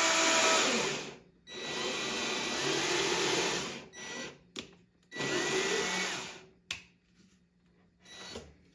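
Power drill boring into wood, run in three bursts of one to two seconds each, with a couple of short blips of the trigger near the end.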